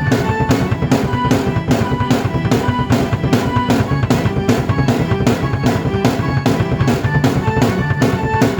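Drum kit and keyboard played together: kick and snare keep a steady beat while the keyboard plays held notes and a melody over it.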